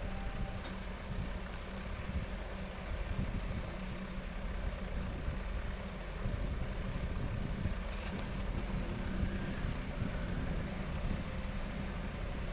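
Steady low rumble of background noise, with a faint high whistle near the start and again near the end.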